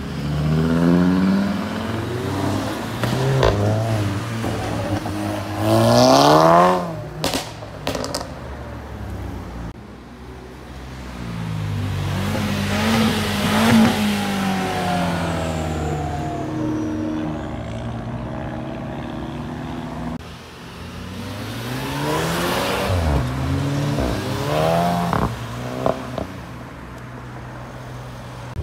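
Three tuned cars accelerating hard past one after another, each engine note rising in pitch and then falling away as it passes. Sharp exhaust cracks come after the first pass and near the end.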